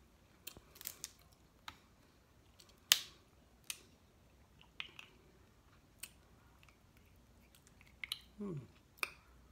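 Snow crab leg shells cracked and snapped apart by hand: a series of separate sharp cracks, spread out, the loudest about three seconds in.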